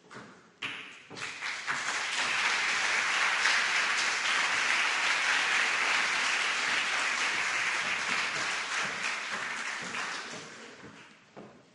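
Audience applauding: the clapping starts about a second in, swells quickly, holds steady, and dies away near the end.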